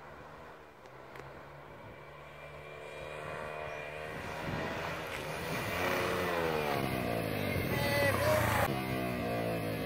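Keeway TXM 125's single-cylinder four-stroke engine, breathing through an aftermarket exhaust with the dB killer fitted, approaching while accelerating. It grows steadily louder as it nears, its pitch climbing with the revs and then dropping sharply near the end.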